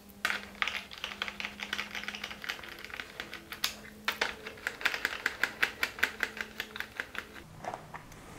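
Ratchet wrench clicking in quick runs as the tail-section fasteners are backed out, several clicks a second with brief pauses between runs.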